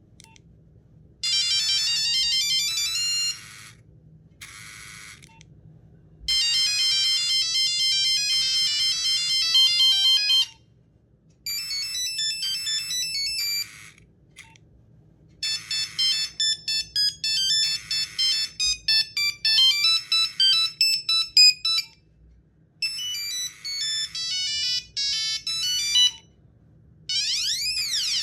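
Nokia 1100 mobile phone playing its monophonic beeping ringtones, several short tunes one after another with brief pauses between them. The last tune, near the end, sweeps up and down in pitch.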